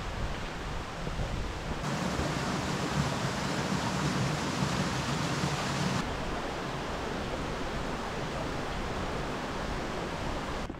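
Wind blowing on the microphone, a steady rushing noise that gets louder and brighter for a few seconds in the middle, starting and stopping abruptly.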